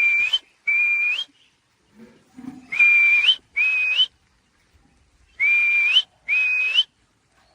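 Whistle calls to summon a free-flying pet myna: three pairs of short notes, each a steady high tone ending in a quick upward flick, with pauses between the pairs.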